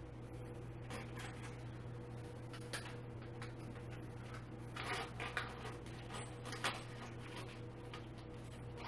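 Scattered light clicks and small knocks of chair parts being handled and fitted during assembly, with a brief cluster of rattles about halfway through and a sharper click shortly after, over a steady low hum.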